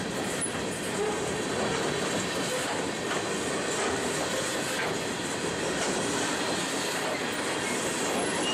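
Freight train cars rolling past on the rails: a steady, even rumble of steel wheels on track, with faint high wheel squeals now and then.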